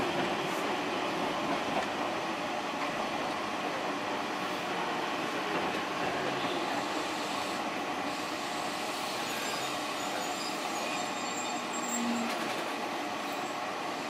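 Eizan Electric Railway train running at a steady speed, heard from inside the car: an even running noise of wheels on rail and motors, with no clear changes.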